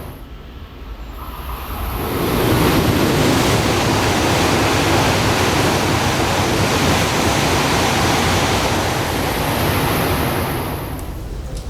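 Shinkansen train passing at high speed: a steady rushing roar that builds about two seconds in, holds, and fades away near the end.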